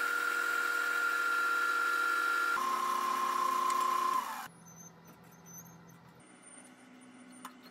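Wood lathe running with a steady high whine, then switched off about four seconds in, its pitch falling as it winds down to a faint hum.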